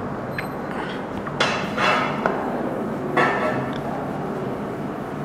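A cloth wiping a whiteboard: two short rubbing strokes, about one and a half and three seconds in, with a few faint clicks.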